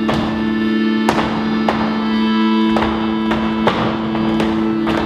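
Instrumental music with guitar: two low notes held steadily under plucked strings struck about twice a second.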